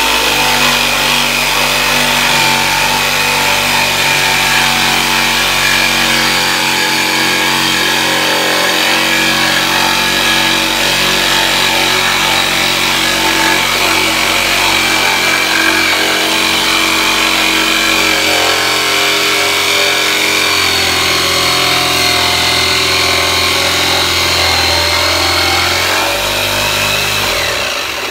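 Electric jigsaw running continuously as it cuts through an OSB sheet, a steady whine with shifts in pitch as the cut goes on. It cuts off near the end.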